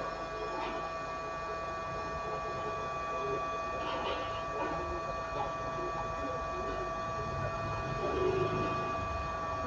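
Hot air blower running steadily with a constant whine, drying water out of a water-damaged Bluetooth speaker's circuit board with heat.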